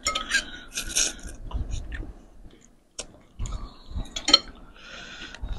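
Eating sounds: slurping of yellow noodles from a bowl of mee bakso soup, with chewing and a few sharp clinks of a spoon and fork against the bowl.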